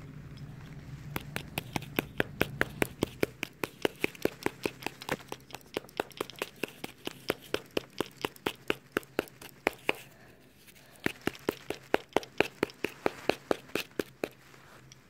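Hammer tapping a crumpled aluminium foil ball in quick, steady blows, about four a second, to beat its flattened bottom round. The tapping pauses briefly about ten seconds in, then starts again.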